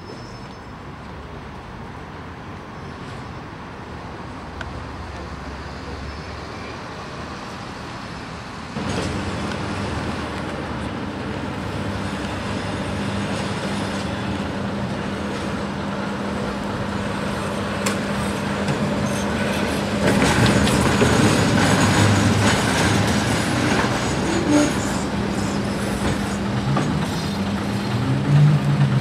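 Heritage double-deck electric trams running on street track: rumble and clatter of wheels on rail, with a steady hum from about a third of the way in and the loudest stretch as a tram passes close about two-thirds of the way through. A bus engine revs near the end.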